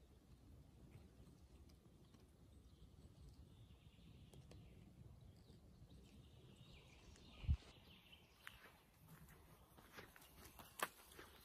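Near silence: quiet forest ambience with faint rustling, one short low thump about seven and a half seconds in, and a sharp click near the end.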